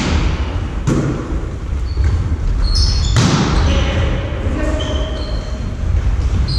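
Volleyball play in an echoing gym: the ball is struck or lands three times, sharp slaps at the start, about a second in and just past three seconds, with short high sneaker squeaks on the wooden floor between them.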